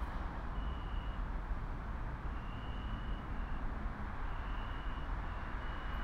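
Low steady rumble under a soft hiss, with short high-pitched tones sounding on and off at irregular intervals, each about half a second long.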